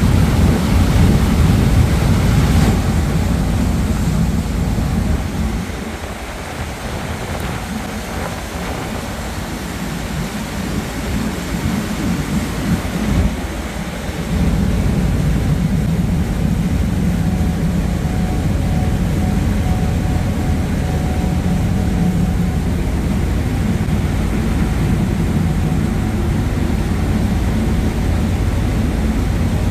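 Steady low rumble of a harbour ferry under way, with wind buffeting the microphone and the rush of water from its wake. It drops quieter for several seconds and comes back louder about halfway through.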